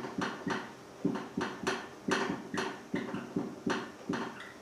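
Marker pen writing on a whiteboard: a quick, irregular run of short strokes and taps, about three a second, as kanji characters are drawn.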